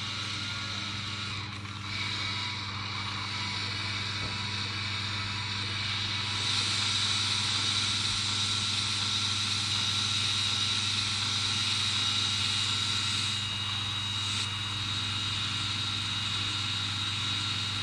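Electric motors and plastic gearing of a Lego Technic Liebherr R 9800 excavator running steadily under app control, a mechanical whine over a low hum. It gets louder about six seconds in as more functions run at once.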